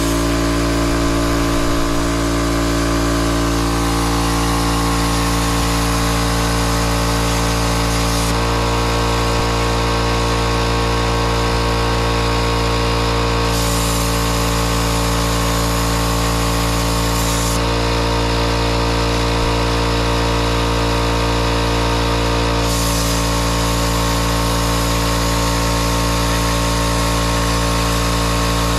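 Plasma torch of a CNC plasma table cutting thin stainless steel sheet: a steady, loud hiss and buzz. The high hiss drops back and returns a couple of times.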